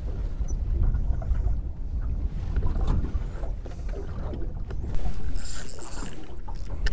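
Wind rumbling on the microphone of a small boat at sea, with faint knocks and rustles of hands handling bait on the deck. A brief hissing rush comes about five seconds in.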